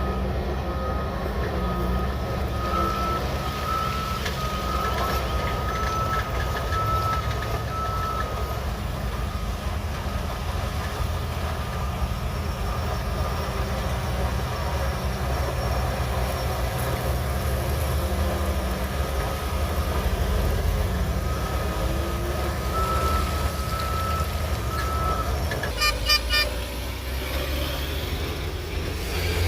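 Shantui DH17C3 bulldozer's diesel engine running steadily while its reversing alarm beeps in quick repeated pulses, first for about eight seconds and again for a few seconds later. A sharp metallic clank comes near the end.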